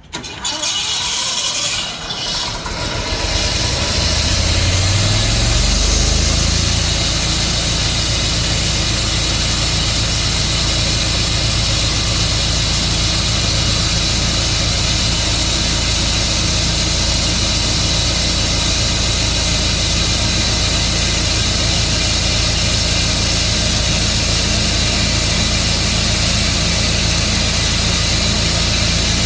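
Gas engine of a Tru-Cut band sawmill starting up, rising in pitch over several seconds as it is brought up to speed, then running steadily and loudly.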